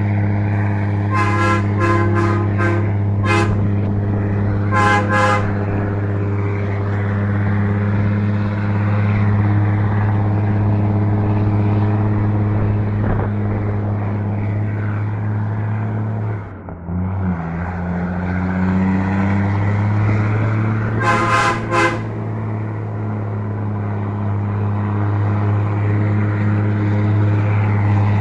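Heavy truck's diesel engine pulling hard up a hill under a full load of concrete blocks, a steady low drone. About halfway through the engine note dips briefly and comes back at a new pitch, as at a gear change. Groups of short horn toots sound early, again about five seconds in, and around twenty-one seconds in.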